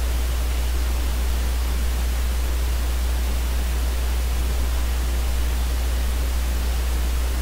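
Steady hiss with a low, constant hum underneath: background noise of the recording microphone, with no other sound.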